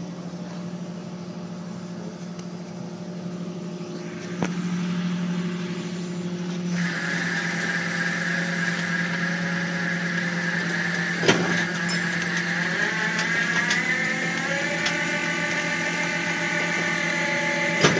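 Flatbed tow truck running while its winch pulls a car up the tilted bed: a steady low hum, a higher whine joining about seven seconds in and climbing in pitch toward the end, and a couple of sharp knocks.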